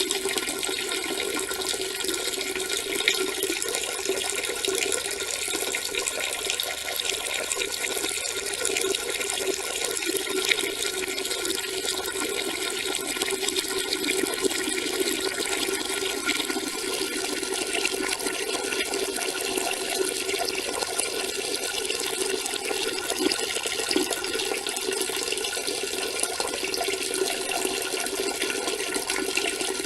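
A continuous stream of urine splashing into toilet water, running steadily without a break.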